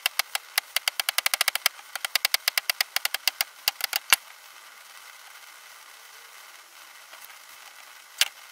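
A round wooden maul tapping a smooth-faced metal leather tool in a rapid, regular run of light strikes, driving it along the carved outline of the leather. The run ends with a harder strike about four seconds in, and one more tap comes near the end.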